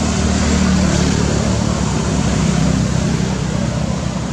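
Motor vehicle engine running, a steady low rumble with traffic noise.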